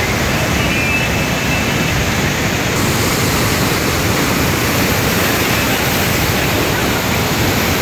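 Parvati River in spate, rushing over rocks in muddy whitewater rapids: a loud, steady rush of water.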